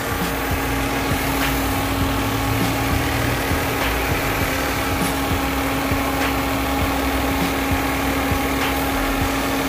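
Hyundai SOHC 12-valve four-cylinder engine idling steadily, with a constant hum and a faint tick about every second. The owner puts a slight noise down to the cheap replacement water pump, which he felt catching as he fitted it.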